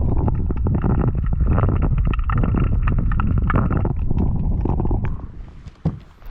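Heavy low rumble of wind buffeting the microphone, with many scattered knocks and crunches, falling away about five seconds in.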